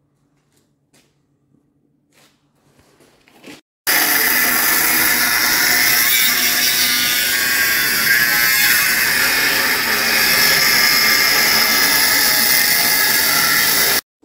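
A power tool running steadily and loudly for about ten seconds, starting abruptly about four seconds in and cutting off sharply near the end; a few faint taps come before it.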